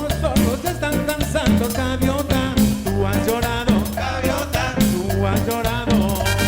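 A band playing salsa-style Latin dance music, with a steady bass line, drums and percussion under a wavering melody line.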